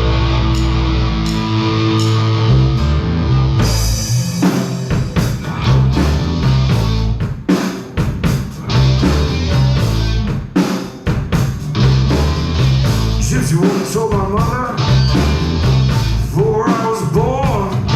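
Live blues-rock band playing an instrumental intro on drums, bass and electric guitar. The full band comes in about four seconds in, and wavering lead lines rise over it near the end.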